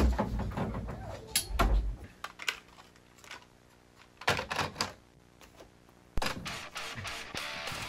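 Thuds and clicks of a door being handled, then the plastic clicks and clatter of a cassette boombox's tape door as a cassette goes in. A sharp click about six seconds in, as the deck is shut or started, is followed by a steady tape hiss.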